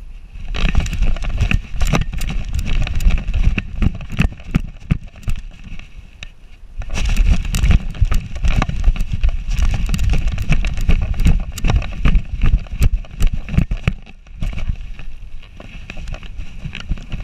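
Wind buffeting and knocking on a GoPro worn on the collar of a running German Shorthaired Pointer, with many thumps from the dog's strides. It comes in two loud stretches, easing off briefly about six seconds in and dropping to a quieter rustle near the end.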